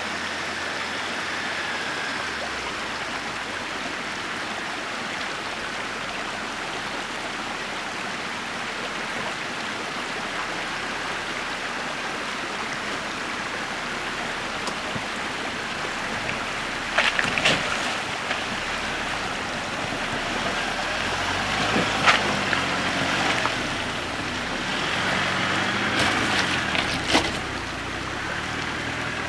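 Small stream running over rocks, a steady rush of water. In the second half the low hum of a Jeep Wrangler 4xe crawling closer over the rocky trail grows in, with a few sharp knocks.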